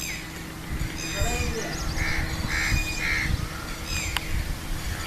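Outdoor ambience with a low rumble, faint voices, and three short calls about half a second apart, a bird or animal, around two to three seconds in.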